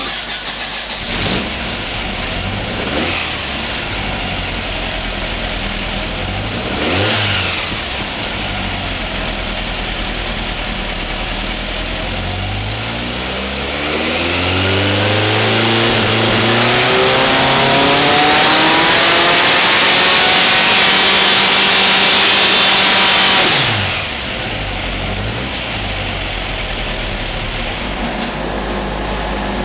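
High-output VW air-cooled flat-four engine idling with three quick throttle blips. About twelve seconds in it revs up over a couple of seconds, holds loud at high revs for about nine seconds, then drops back to idle.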